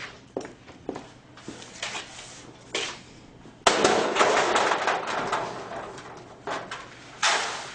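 Loose dry soil poured and scraped in a metal tray. A sudden rush comes about halfway through and fades over a couple of seconds, with shorter rushes near the end. Light knocks and handling sounds come before it.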